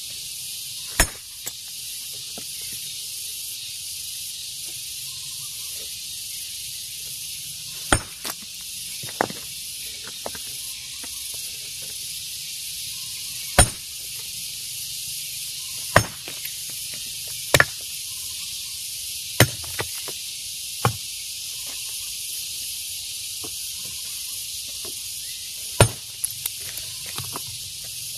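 Hammer blows striking rock as stone is broken by hand: about ten sharp, separate strikes spaced irregularly a few seconds apart, over a steady high-pitched hiss.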